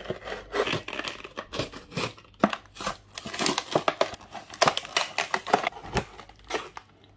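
Clear plastic toy packaging crinkling and crackling as it is pulled apart by hand to free an action figure. Irregular crackles and snaps that stop just before the end.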